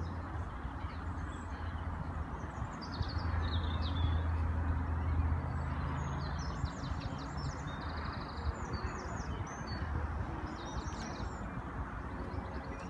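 Small songbirds singing short phrases and trills on and off, over a steady low rumble.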